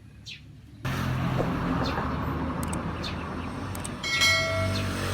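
Vehicle engine noise that comes in suddenly about a second in and then runs steadily, with birds chirping. A short tone sounds about four seconds in.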